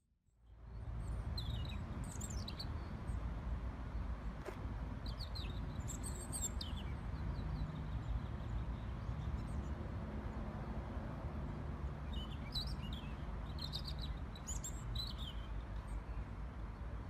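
Birds chirping in three short spells of quick high notes over a steady low rumble that starts about half a second in.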